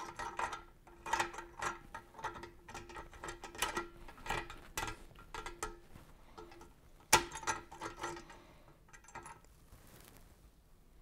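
Steel axle rod being pushed through the holes in the ends of a media blaster's tubular steel handles: a run of metal-on-metal scrapes and clinks with a ringing note, the loudest knock about seven seconds in, quieter near the end.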